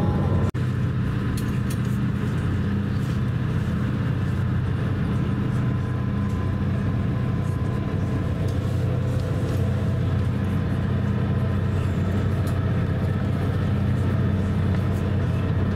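Steady low drone of a Cotai Water Jet high-speed ferry's engines, heard inside the passenger cabin, with a brief break about half a second in.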